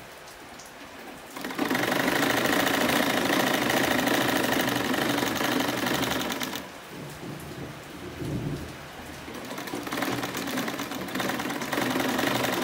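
Sewing machine stitching a seam through fabric, sewing a loose basting stitch. It starts running about a second and a half in, drops away for a few seconds in the middle, then runs again from about ten seconds on.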